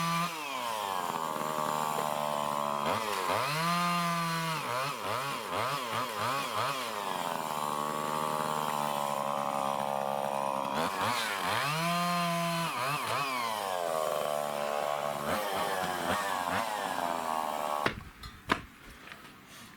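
A small engine revving up and down in repeated surges, its pitch climbing and dropping several times, then cutting off about eighteen seconds in, followed by a couple of knocks.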